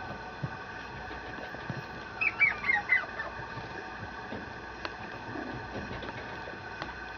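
Mame shiba puppy giving a quick run of four short, high yips about two seconds in, over a steady faint hum.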